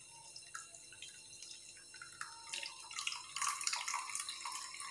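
Thick blended juice poured through a mesh strainer into a steel tumbler: faint splashing and dripping that grows louder past the middle.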